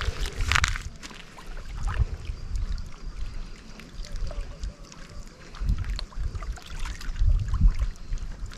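Wind buffeting the microphone in irregular low rumbling gusts.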